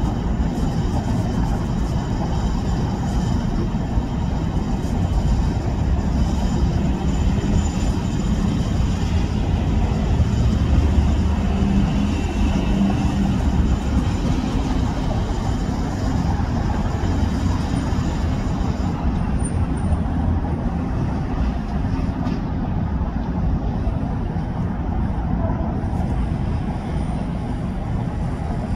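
Steady low rumble of urban vehicle traffic and engines, even throughout with no distinct events.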